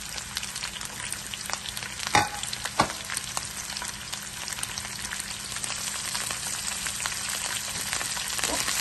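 Sliced red onion and coconut pieces sizzling in hot coconut oil as they are stirred with a slotted spoon. There are two sharp knocks a little over two seconds in, and the sizzle grows louder near the end.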